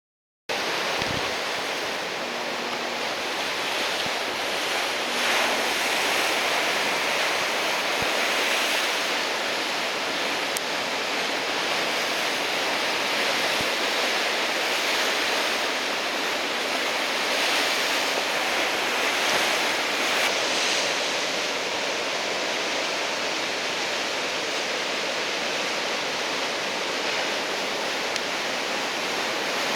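Heavy typhoon-swell surf breaking along the shore: a continuous wash of waves that swells louder several times as big sets break.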